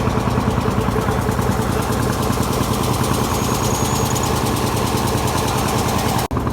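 Fishing boat's engine running steadily with a fast, even chugging pulse, broken by a brief dropout near the end.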